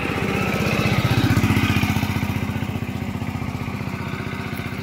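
Engine of a passing motor vehicle running with a fast, even beat. It grows louder to a peak about a second in, then slowly fades.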